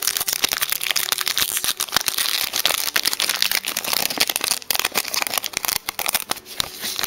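Foil wrapper of a Pokémon TCG Battle Styles booster pack crinkling and crackling as it is handled and torn open, a dense run of quick crisp crackles.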